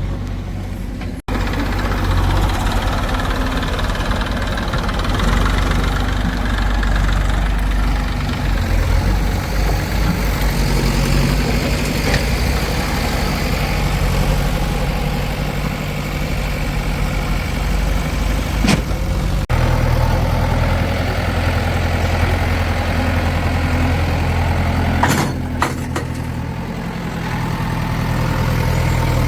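Heavy diesel engine of earth-moving machinery running steadily with a deep hum. The sound changes abruptly twice, and there are a few sharp knocks near the end.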